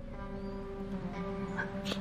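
Film score music with several sustained low notes held steady, and a short click near the end.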